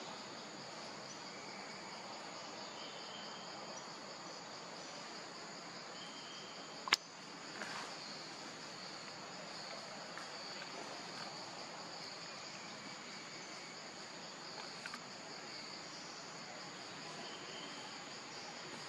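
Steady chorus of insects in the forest, a continuous high, faintly pulsing buzz. A single sharp click about seven seconds in.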